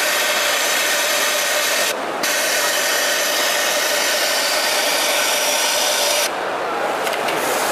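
Kingtex UHU9304 two-needle, four-thread cylinder-bed overlock machine running at speed while attaching a neckband, a steady high whirring hiss. It stops for a moment about two seconds in, runs again, then stops a little after six seconds, leaving a lower background.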